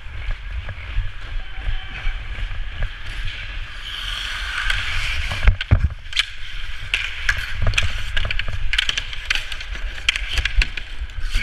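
Hockey skates scraping and carving on the ice during fast skating, over a low rumble of air rushing past the microphone. From about five and a half seconds in come repeated sharp clacks of the stick on the puck and ice as the puck is carried along the boards.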